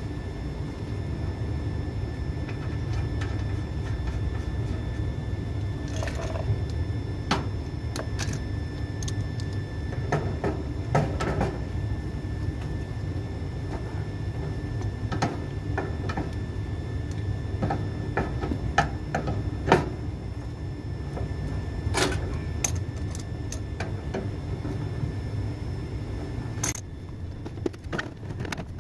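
Scattered metallic clicks and clinks of an adjustable wrench working the flare nuts on an air-conditioner outdoor unit's pipe fittings, over a steady low machinery hum that drops away near the end.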